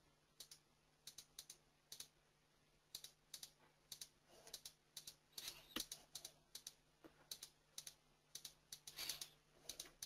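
Near silence with faint, irregular clicking of computer keys, about three a second, over a faint steady low hum.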